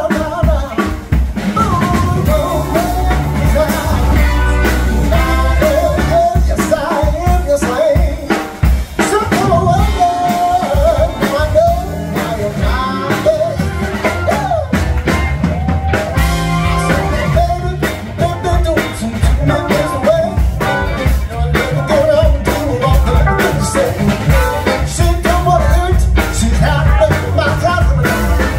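Live band playing, with a trumpet and a saxophone carrying the melody over drums.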